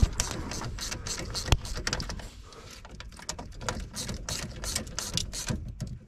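Hand socket ratchet clicking in quick runs as the ignition switch's mounting bolts are tightened to snug, with one sharper click about a second and a half in.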